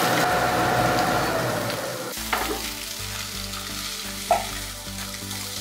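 Soya chunks sizzling in hot oil in a frying pan as they are stirred, fried to golden brown. About two seconds in the sizzle drops away and soft background music comes in, with a click and a short knock as the pan is handled.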